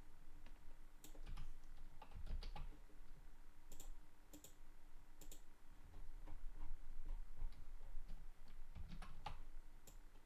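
Irregular light clicks and taps of a computer input device while on-screen drawings are edited, coming a few at a time, with a faint steady hum underneath.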